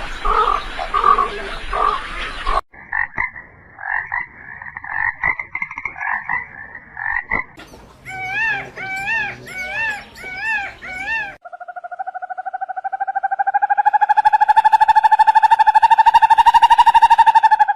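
A sequence of different animal calls. Several seconds of rapid pulsed calls are followed by repeated short arching chirps, and then one long pulsed trill that slowly rises in pitch and grows louder.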